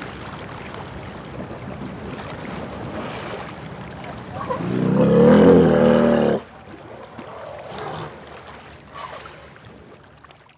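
An elephant gives one loud, low, pitched call about four and a half seconds in, lasting about two seconds and cutting off suddenly, over steady rushing background noise.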